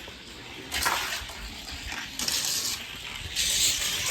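Johnny Lightning die-cast car rolling down a gravity race track: a rushing, hissing noise of small wheels on the track that starts about a second in and swells twice.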